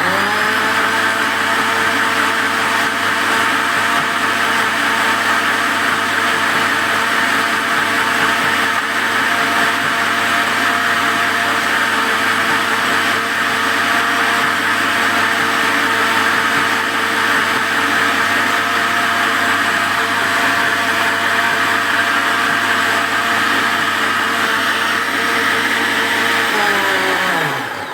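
Electric kitchen blender running at full speed, blending ginger, bitter kola and alligator pepper with a little water. Its motor runs steadily, then winds down with a falling pitch near the end.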